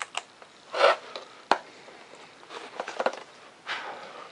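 Handling noises of a foam-board model airplane: a few short scrapes and rubs as the foam pieces are pressed and moved, with one sharp click about a second and a half in.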